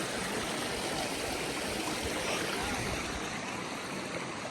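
Flowing stream water rushing steadily over rocks.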